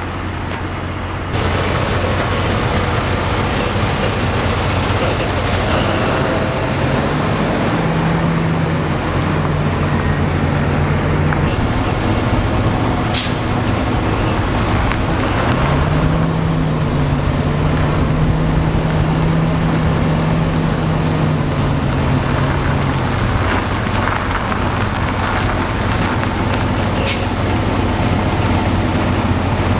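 Western Star semi tractor's diesel engine running and moving off at low speed, its pitch rising for a few seconds twice as it pulls. Two short hisses of air are heard, one about halfway through and one near the end.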